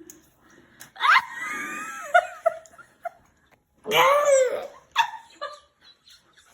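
A five-year-old boy's high-pitched squealing vocal outbursts: one rising squeal about a second in and a louder, longer cry around four seconds, with a few short sounds between.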